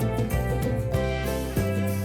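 Background music with plucked guitar and a steady bass line.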